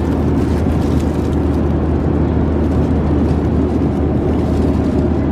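Steady loud rumble with a deep, even hum underneath: the running noise inside a moving vehicle's cabin.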